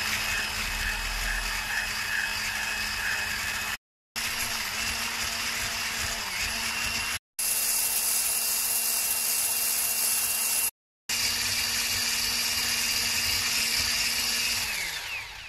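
Electric hand mixer with wire beaters running steadily at top speed, whipping egg whites and sugar into Swiss meringue. The hum cuts out in three brief silent gaps and winds down near the end.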